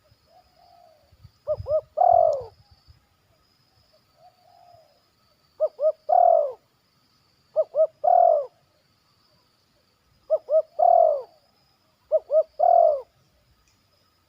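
Spotted dove (tekukur) cooing five times, every two seconds or so. Each call is two short notes followed by a longer, louder falling coo. Faint soft murmurs come between the calls.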